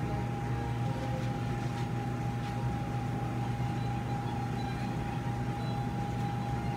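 Steady hum and hiss of operating-room equipment, with a constant high tone over a low drone and a few faint ticks.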